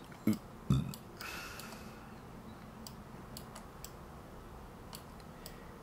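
Two brief low vocal murmurs come near the start, followed by sparse, irregular clicks of a computer mouse and keyboard over quiet room tone.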